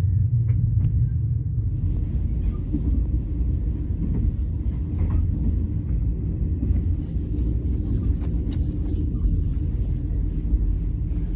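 Sleeper train carriage running at speed: a steady low rumble from the wheels and rails, with a few faint clicks.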